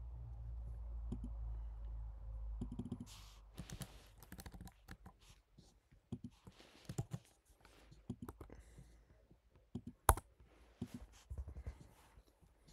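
Scattered key presses and clicks on a MacBook keyboard as text is edited, with one sharp click about ten seconds in. A low rumble runs through the first three seconds.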